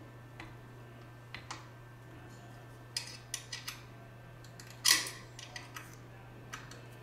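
Small metal clicks and clinks from hands fitting and fastening a tamp pad onto a label applicator's tamp head, with one louder metallic clack about five seconds in, over a steady low hum.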